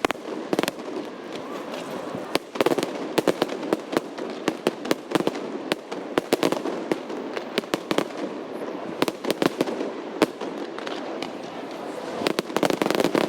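Fireworks display bursting overhead: a steady run of sharp bangs and crackles, many in quick succession, with dense volleys about three seconds in and again near the end.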